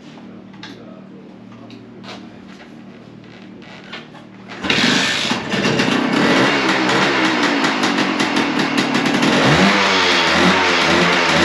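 Suzuki Hustler 250's two-stroke single-cylinder engine being started: a few faint knocks, then it catches suddenly about four and a half seconds in and keeps running loudly. From about nine and a half seconds in, the throttle is blipped, with the engine note rising and falling.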